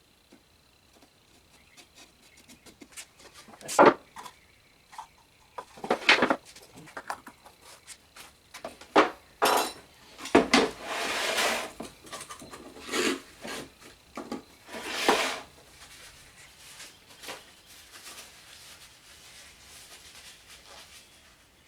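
Objects being handled and set down on a work surface: a string of separate knocks and clatters of wood and hard items, with a longer rubbing, rustling stretch about halfway through.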